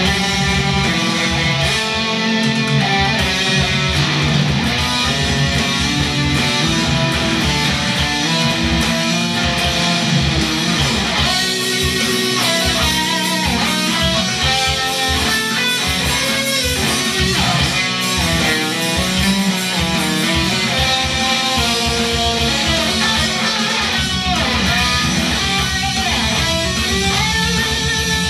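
Death metal song: a heavily distorted electric guitar plays riffs and melodic lines over a fast, steady low rhythm.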